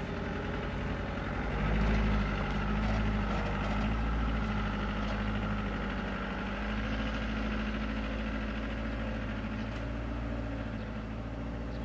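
Truck engine pulling a load of concrete blocks up a steep dirt track, a steady low engine note that swells slightly about two seconds in.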